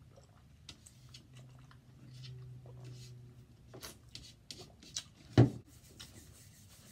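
A man drinks from a plastic drink bottle, with a low steady hum for a few seconds as he drinks. Small clicks and mouth sounds follow, then a single loud knock about five seconds in as the bottle is set down on the table.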